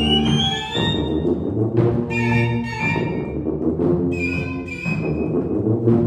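A small ensemble of flute, violin and two sousaphones playing: the sousaphones hold low notes under the flute and violin melody, which climbs in a rising run near the start.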